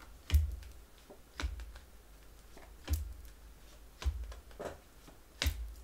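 Tarot cards being drawn and laid down on a table: about six sharp taps, each with a dull thump under it, irregularly spaced about a second apart.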